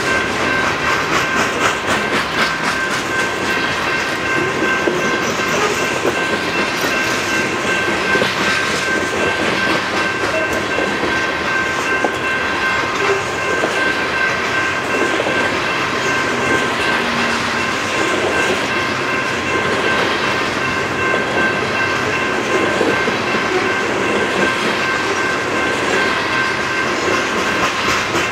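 A train rolling past, its wheels clicking steadily over the rail joints, with a steady high-pitched ringing tone over the rumble.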